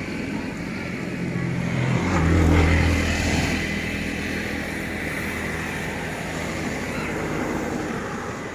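A vehicle engine running, growing louder about two seconds in and easing back to a steady level.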